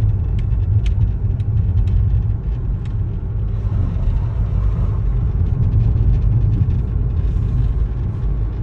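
Steady low rumble of a moving car heard from inside the cabin: engine and tyre road noise, with a few faint clicks in the first three seconds.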